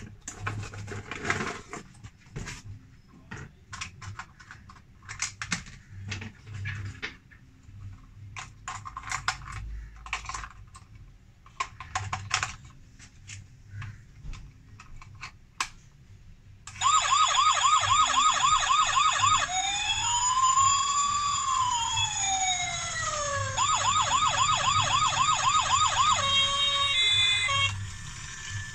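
Battery-powered toy police car's electronic siren playing loudly through its small speaker: a fast warbling yelp, then one slow rising-and-falling wail, then the fast yelp again, ending in short electronic beeps. For the first half, before the siren starts, only the clicks and rattles of the plastic toy and its packaging being handled are heard.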